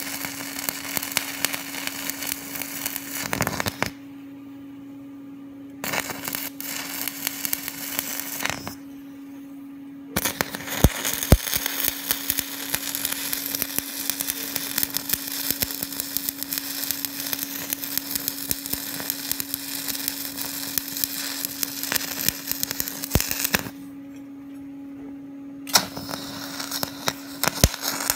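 Electric arc welding: the arc crackles and sizzles in runs of several seconds, stopping briefly about four, nine and twenty-four seconds in as each weld is paused, over a steady hum.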